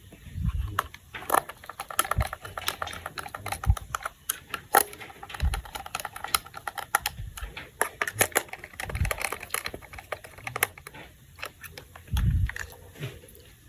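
Plastic toy parts being handled and snapped together: many irregular small clicks and taps, with a few soft low thumps.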